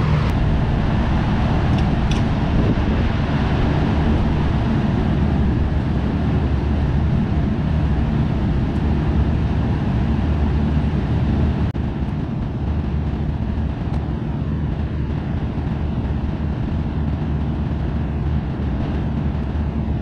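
Steady low mechanical hum of machinery, which becomes a little quieter about twelve seconds in.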